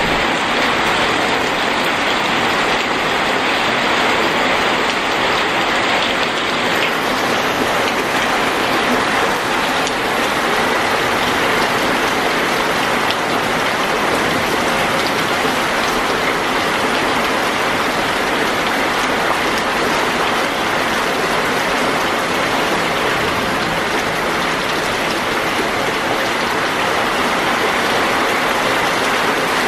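Heavy rain splashing steadily onto a flooded paved floor and its shallow standing water: a dense, even hiss of countless drops.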